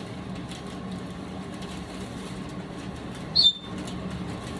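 A parrot gives one short, sharp, high-pitched chirp about three and a half seconds in, over a steady low hum in the room.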